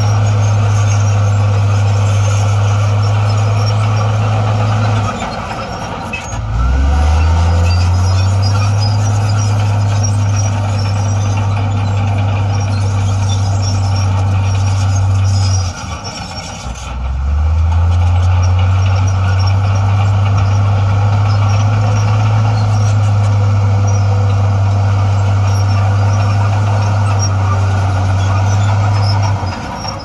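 Heavy diesel engine of an earthmoving machine working hard with a deep steady drone. It eases off briefly about five seconds in and again about sixteen seconds in, revving back up each time, and dips once more near the end.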